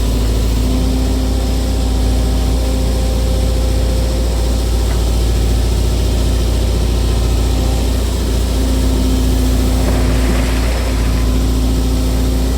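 Excavator's diesel engine running steadily with a low drone.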